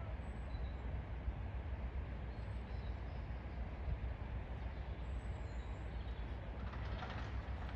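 Low, steady rumble of a Class 33 diesel locomotive's Sulzer engine as the train approaches, with a few faint bird chirps.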